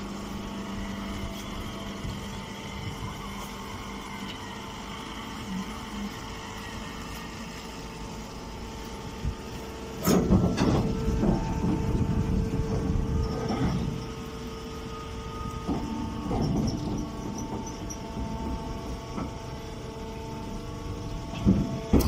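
Hydraulic straw baler running with a steady hum of several tones from its motor and pump. About ten seconds in, a louder, irregular noise sets in for about four seconds, with a shorter one around sixteen seconds, as a bale is pushed out into its bag.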